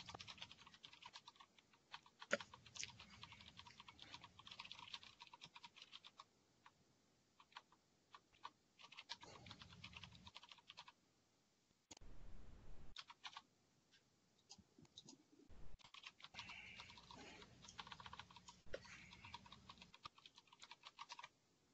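Faint typing on a computer keyboard: soft, irregular keystrokes in clusters, with a few short pauses.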